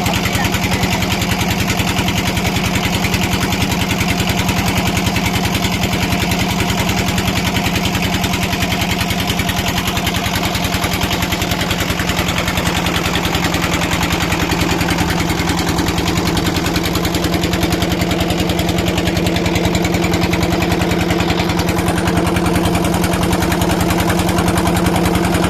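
Engine running steadily with a rapid, even beat. About halfway through, a second, higher steady tone comes in.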